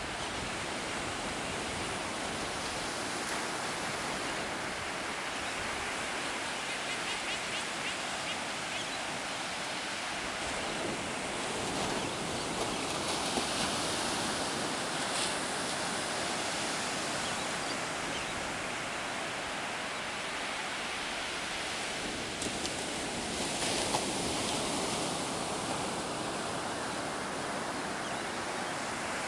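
Ocean surf breaking and washing up a sandy beach: a steady rushing that swells and eases as the waves come in.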